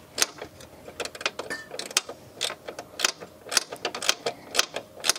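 Hand ratchet clicking as bolts are tightened on a car's wing bracket, a short burst of sharp metallic clicks about every half second.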